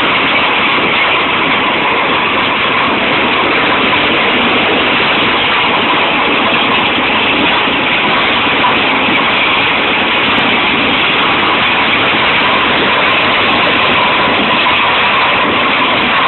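Tractor PTO-driven double-disc wood chipper running steadily: a loud, even mechanical noise with a faint steady whine.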